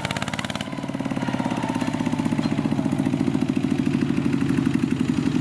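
Mini tractor's single-cylinder diesel engine running with a steady rhythmic beat. A sharper clatter drops away under a second in, leaving a lower engine note that slowly grows a little louder.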